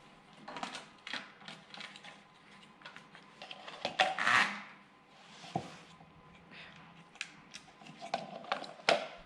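Scattered light clicks and knocks of metal and plastic parts being handled on a small snowblower, with a short louder rustling burst about four seconds in.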